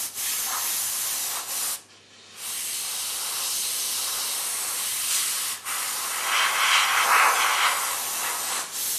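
Airbrush spraying: a steady hiss of compressed air, cut off briefly about two seconds in, then running on evenly and growing louder for a moment about two-thirds of the way through.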